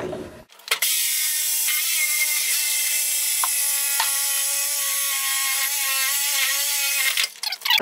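A power tool running steadily as it cuts into the sheet-metal jacket of an old cast-iron boiler: a continuous whine over a high hiss. It starts under a second in and stops near the end.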